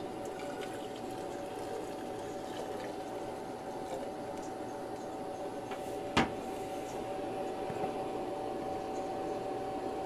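Freshly boiled water being poured from a small portable electric kettle into a glass mug, over the steady hum of a power station's cooling fan. One sharp clink about six seconds in.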